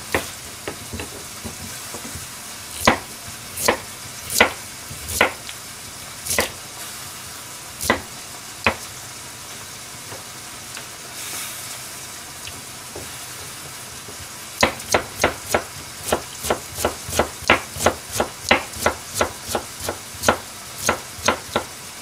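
Kitchen knife cutting a carrot on a plastic cutting board: a few separate cuts in the first part, then steady fast chopping into thin strips, about three strokes a second, from about two-thirds in. A pot cooking on the stove hisses steadily underneath.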